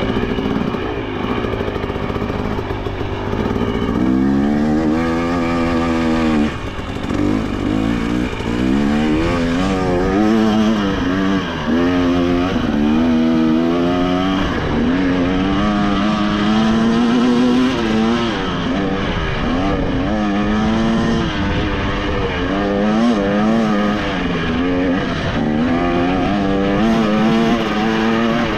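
2023 KTM 300 XC two-stroke dirt bike engine under way on a trail ride. Its pitch rises and falls every second or two as the throttle is rolled on and off.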